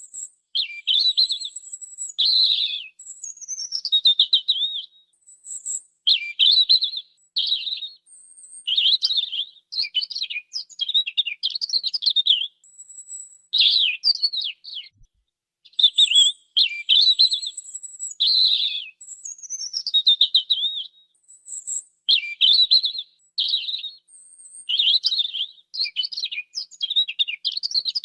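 European robin singing: a series of short, varied, high-pitched phrases of warbles, trills and thin whistles, each about a second long, separated by brief pauses.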